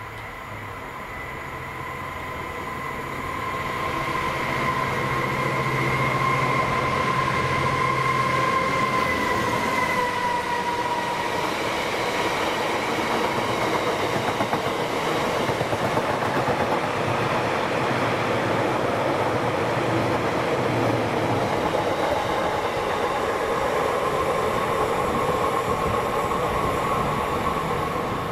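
Class 66 diesel freight locomotive approaching and passing, its steady engine whine dipping in pitch as it goes by, followed by a long rake of stone hopper wagons running past.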